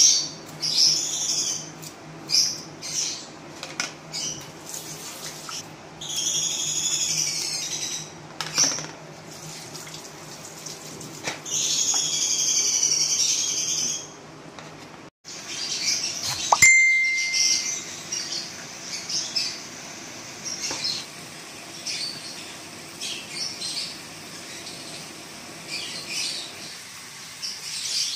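Birds chirping and calling, in two long bouts of high, warbling calls, over a steady low hum. Short scraping and tearing sounds come from a kitchen knife peeling the tough sheaths off fresh bamboo shoots.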